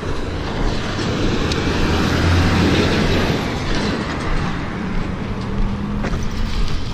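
A road vehicle passing close by: a broad rumble that swells to its loudest about halfway through and then eases off, leaving a steady low engine hum.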